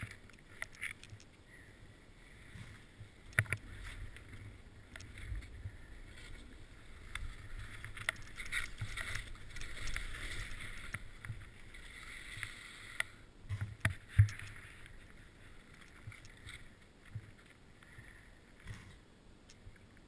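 Skis sliding over snow, a hiss that swells and fades with each turn, with a low rumble under it and a couple of sharp knocks, the loudest about 3.5 and 14 seconds in.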